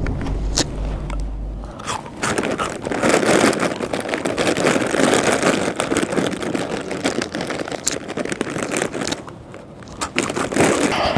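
Potato chips being chewed loudly and obnoxiously, a dense run of crunches with a short lull about nine seconds in. A deep low rumble sounds in the first two seconds.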